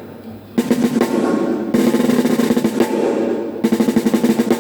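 Acoustic drum kit played in fast rolls in short phrases during a sound check. After a ringing drum fades, the rolls start about half a second in.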